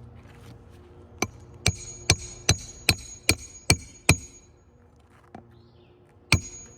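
Hammer driving a roofing nail into a replacement asphalt shingle: eight quick, evenly spaced ringing strikes, about two and a half a second, then one final blow near the end.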